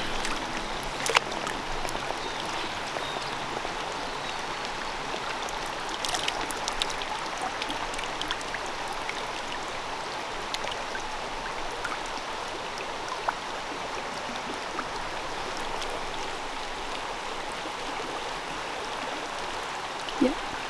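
Shallow stream water running steadily over stones, an even rushing hiss, with a few brief clicks along the way.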